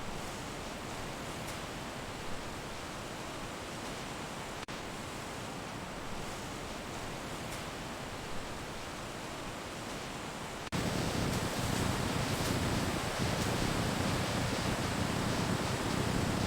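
Steady, even hiss of background noise with no distinct events, stepping up louder about eleven seconds in.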